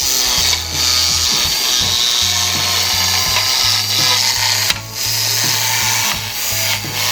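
A handheld power tool running on wood fence panelling, with a couple of short breaks, over background music with a steady bass line.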